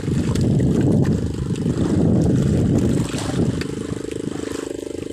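Small engine running steadily, the generator that powers the fishing lights on a neighbouring boat, under an irregular low rumble. From about three seconds in, the engine's fast, even pulsing comes through more clearly.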